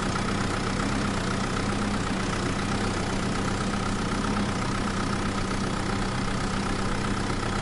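Steady engine idling: an even low hum with a faint higher whine, unchanging in pitch and level.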